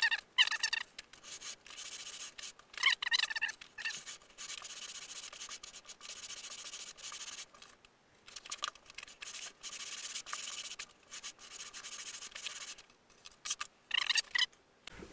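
Hand sanding of a wooden RC-plane elevon with a sandpaper block: repeated back-and-forth hissing strokes, with a few short squeaks at the start and near the end.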